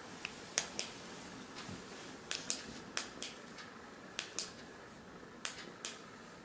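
Push-button switch of a Lista zoomable LED flashlight clicked about five times, each press a sharp double click, cycling the light through its high-beam, low-beam and SOS modes.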